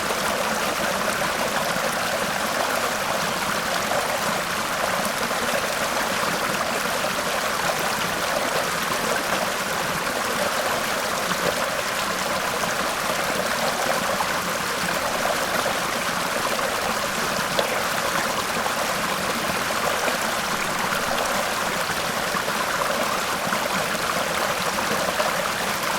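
Waterfall running: a steady, unbroken rush of falling and splashing water.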